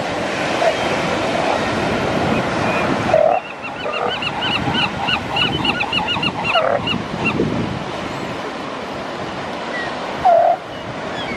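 Surf washing steadily, with short yelping calls from a northern elephant seal mother and her newborn pup every few seconds. Through the middle there is a quick run of high, rising chirps.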